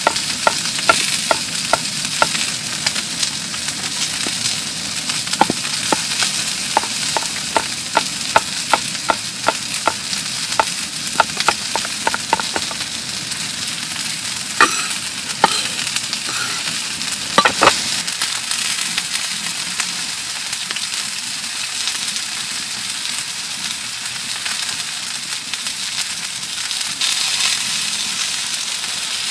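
Food sizzling in a pan. Over the first half a utensil clicks sharply against the pan about twice a second as the food is stirred, then only the steady sizzle goes on.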